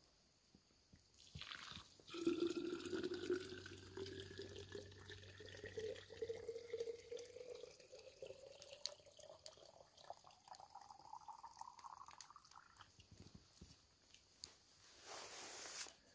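Water strained through a cotton cloth and poured into a bottle, its tone rising steadily in pitch over about ten seconds as the bottle fills. A brief scratchy noise follows near the end.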